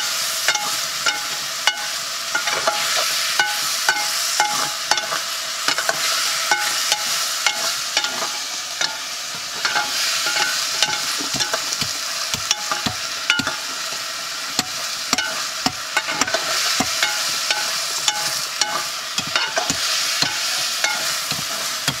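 Food frying in a blackened pot over a wood fire, sizzling steadily, while a metal ladle stirs it, clicking and scraping against the pot over and over.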